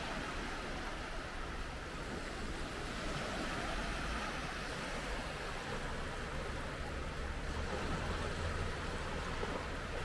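Sea waves breaking and washing on a beach: a steady rushing noise that does not let up.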